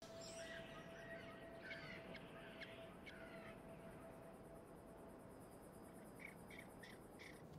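Faint wild ambience of birds and insects: scattered short chirps, then a run of short, evenly spaced chirps near the end, over a low hiss and a faint steady tone that stops about six seconds in.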